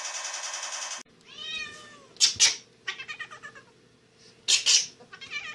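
A rapid rattling sound cuts off about a second in. A cat then meows several times, with two pairs of sharp, loud bursts between the meows.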